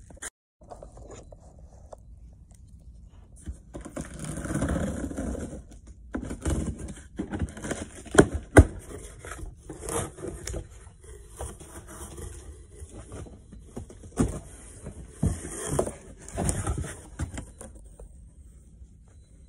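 Cardboard box being handled and shifted, with irregular scraping and rustling and sharp knocks; the two loudest knocks come close together about eight seconds in.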